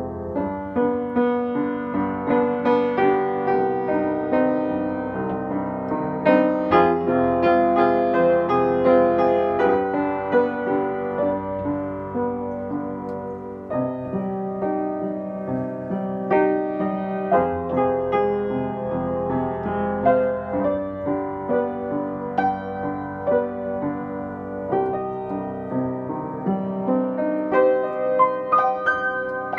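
Upright piano played solo, with both hands striking chords and notes over a C minor, F minor, G major chord progression.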